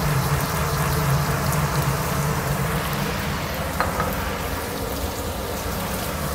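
Shallots, tomato and sauce sizzling steadily in hot oil in a frying pan, over a steady low hum, with one light tick about four seconds in.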